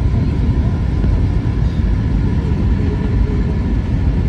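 Steady low rumble of an airliner cabin in flight: engine and airflow noise, unchanging throughout.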